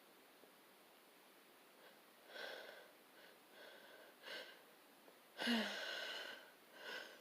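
A person sneezing in a fit of sneezes: several short breathy in-breaths, and one sudden voiced sneeze about five and a half seconds in, the loudest sound.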